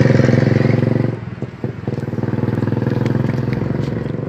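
Motorcycle engine running close by with a steady, rapid firing note; it drops off briefly about a second in, then comes back a little quieter.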